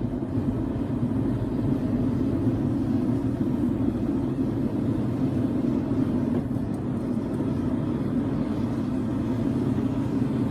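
Freshly lit forge running: a steady, low rushing noise with no rhythm, switched on abruptly just before and holding even throughout.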